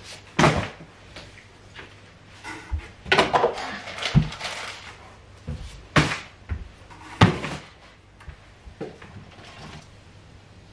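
Cardboard boxes and flaps being handled, moved and set down during unpacking: rustling with several sharp knocks, busiest near the middle, with two single hard knocks a little over a second apart after it.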